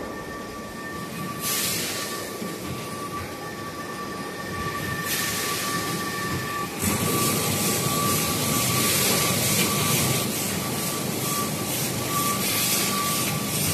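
Automatic vertical form-fill-seal coffee-bean packaging machine running: a steady mechanical noise with a thin, constant high whine. A hiss comes in and grows louder about seven seconds in.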